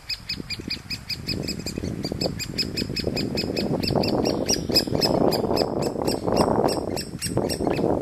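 Great spotted woodpecker nestlings begging loudly while being fed at the nest hole: a rapid, even series of short high calls, about six a second, over a harsher chattering that swells after about a second and stays loud.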